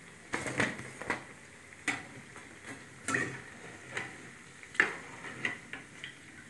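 Freshly fried potato pakoras giving irregular sharp crisp clicks and crackles, about one or two a second, as they are set down on paper and handled. The crackle shows how crisp their gram-flour and rice-flour coating has fried.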